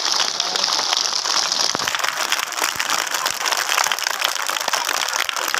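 Crowd of schoolchildren applauding: dense, steady clapping greeting a winner's name just read out.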